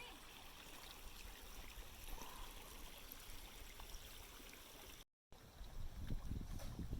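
Faint, steady rush of a flowing creek. After a brief drop-out about five seconds in, a louder low rumble comes in.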